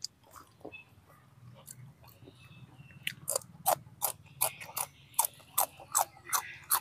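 Person chewing and biting a fresh bird's eye chili close to the microphone: quiet at first, then from about three seconds in a run of sharp crunchy clicks, two or three a second.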